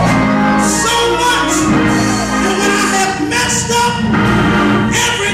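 A man singing into a microphone in gospel style, over steady instrumental backing.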